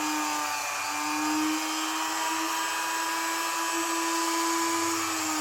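A small high-speed electric motor whirring steadily at an even pitch.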